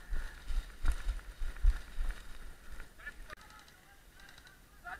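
Heavy footsteps of someone running over a forest floor, with thuds and knocks of gear jolting the head-mounted camera. A faint honk-like tone holds for about the first three seconds.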